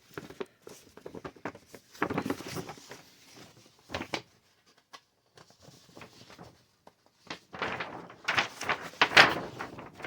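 Large folded paper wargame map being unfolded and handled: paper rustling and crinkling in irregular bursts, loudest near the end.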